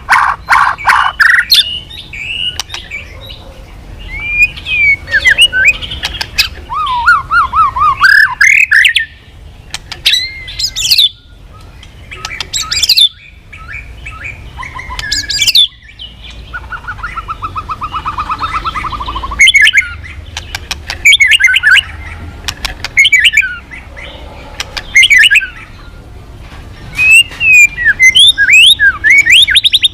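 White-rumped shama (murai batu) singing in loud, varied bursts: fast trills, sweeping whistled notes and sharp clicking notes, with short pauses between phrases.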